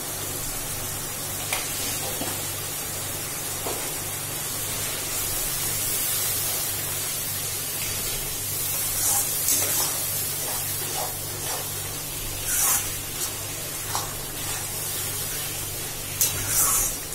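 Spiced onion-tomato masala cooking in a steel kadai with a steady sizzling hiss. Partway through, a steel spatula starts stirring it, scraping against the pan several times in the second half.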